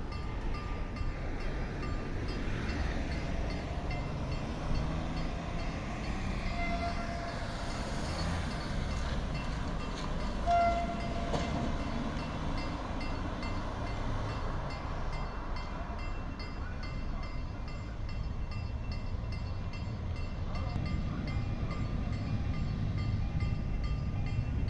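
Road traffic rumbling past a level crossing while the crossing's warning signal rings in quick, even strokes. A brief horn note sounds about ten and a half seconds in, the loudest moment.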